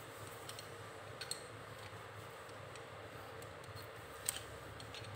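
A few faint, scattered clicks and light taps from steel wrenches being handled, over a low steady hum.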